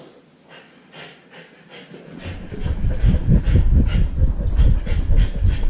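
A husky puppy moving with a GoPro strapped to its back. From about two seconds in there is loud, low rumbling and rapid knocking as the harness-mounted camera is jostled against the puppy's fur and body.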